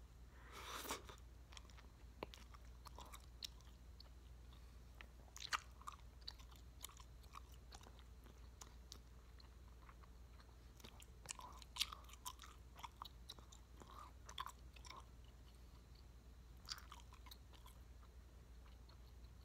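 Chewing of a large wad of bubble gum (about 18 pieces): scattered mouth clicks and smacks in clusters, with quiet stretches between.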